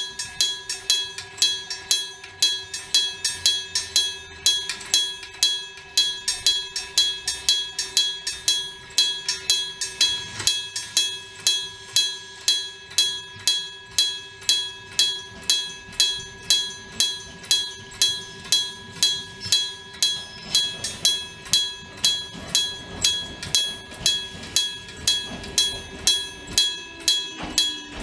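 Japanese railway level-crossing electric warning gong being struck mechanically in a steady rhythm of about two and a half strikes a second. Each strike rings on with several bell tones, and the crossing is sounding its warning for an approaching train.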